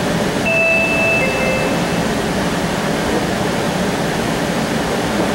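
Steady running and ventilation noise inside a streetcar cabin, with a two-note falling chime about half a second in.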